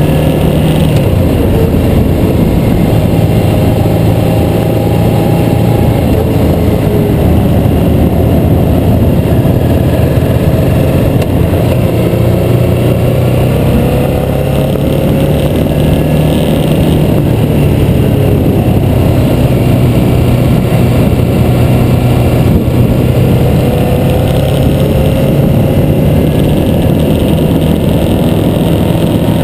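Harley-Davidson V-twin motorcycle engine running at road speed, heard from on the bike, with heavy wind rush on the microphone. The engine note rises and eases back several times as the rider accelerates and backs off.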